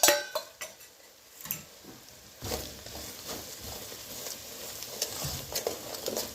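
A spoon stirring and scraping in a pot of onions and whole spices frying in margarine and oil, just after the mixed masala powder goes in, with a light sizzle underneath. A sharp clink right at the start, then irregular scrapes and knocks from a few seconds in.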